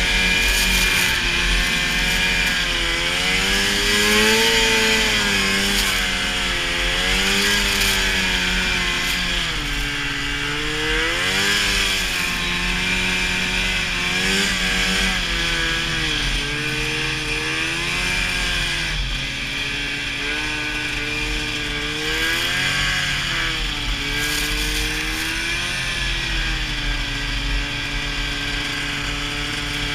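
Old Ski-Doo snowmobile engine running under a working throttle, its pitch rising and falling again and again as it plows through deep powder, settling steadier near the end, with a steady hiss over it.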